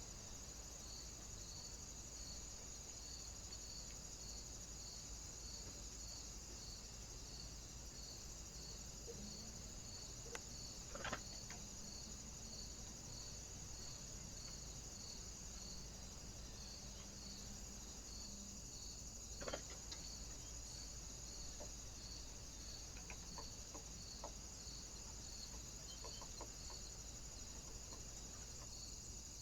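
Steady high-pitched electronic hiss from a trail camera's own microphone and circuitry, with a faint regular pulse about twice a second. Two faint brief knocks stand out, one about a third of the way in and one about two-thirds of the way in.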